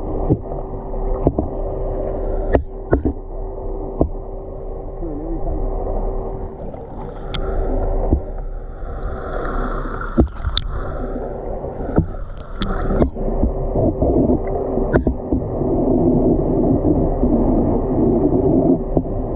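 A boat's engine runs with a steady hum over water and hull noise. Scattered sharp knocks sound on the boat.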